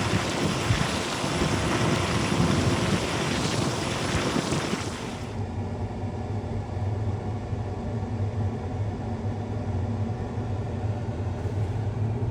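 Wind rushing over the microphone. After an abrupt cut about five seconds in, a combine's engine hums steadily and low, heard from inside the cab.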